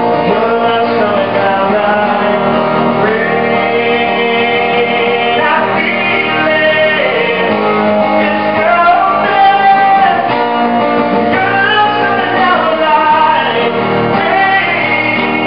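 Live song: a solo singer's voice over guitar accompaniment, held and sliding sung notes.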